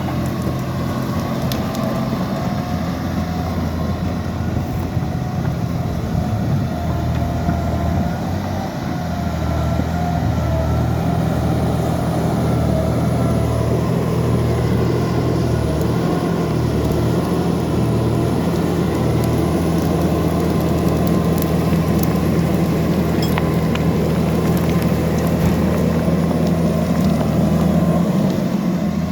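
Liebherr 754 crawler dozer's diesel engine running steadily, with a slight rise in loudness about a third of the way in and faint scattered clicks.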